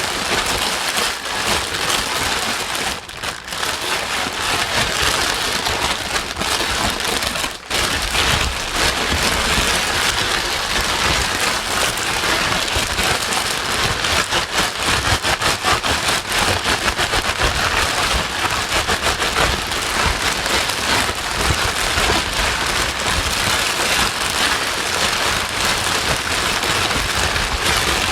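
Steady white noise for settling a crying baby: a dense, rain-like hiss, with two brief dips about three and seven and a half seconds in.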